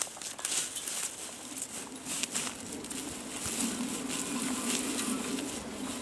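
Footsteps in rubber boots swishing and crackling through tall dry grass and scrub, with scattered small snaps of dry stems.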